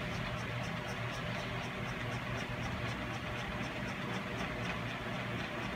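Steady machine hum, with a faint, regular high tick about three times a second.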